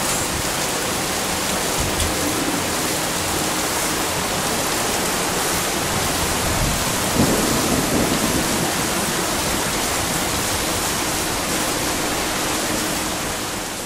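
Heavy rain pouring steadily in a thunderstorm, with a low rumble of thunder about seven seconds in.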